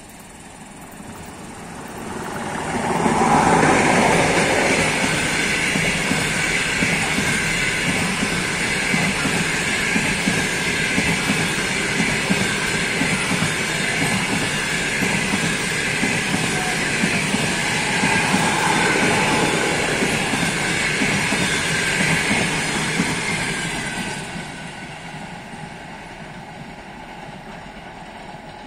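EP20 dual-system electric locomotive and its passenger coaches passing at speed. The sound swells as the locomotive approaches and is loudest about three seconds in. The coaches then roll past in a steady rush of wheel and rail noise for about twenty seconds, which falls away quickly near the end as the train moves off.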